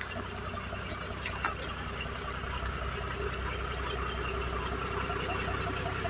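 Motorhome engine running at low speed as the vehicle approaches, a steady rumble growing gradually louder, with a sharp tick about a second and a half in.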